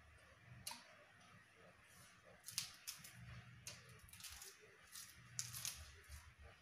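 Faint eating sounds from a person eating by hand: chewing with wet mouth clicks and the crisp tearing and crunching of fresh curly lettuce leaves. A few sharp clicks stand out, about a second in, past the middle and near the end, over a low steady hum.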